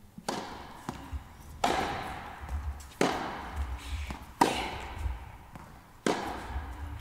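Tennis rally: rackets strike the ball back and forth, five sharp hits about a second and a half apart, each echoing in a large indoor hall.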